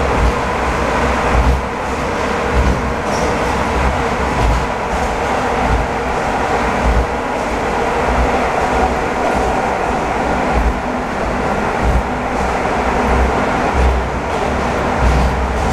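Metro train of the 81-740 Rusich type running at speed between stations, heard from inside the car at the doors: a steady loud rumble and hiss of wheels on rails, with irregular low thumps.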